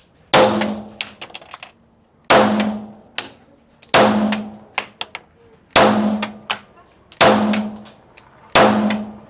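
Gunshots fired one at a time in a slow, even string: six shots about one and a half seconds apart, each ringing as it dies away and followed by a few light metallic clinks.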